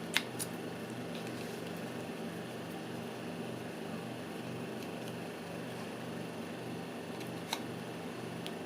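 Steady low hum over a background hiss, with two small sharp clicks: one just after the start and one near the end.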